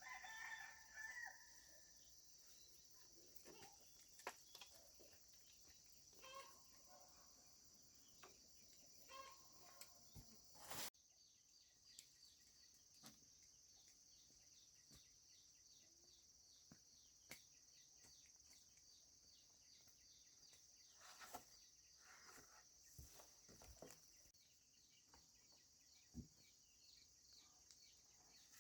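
Insects chirring steadily in a high, thin band, with scattered faint knocks and a short bird call near the start.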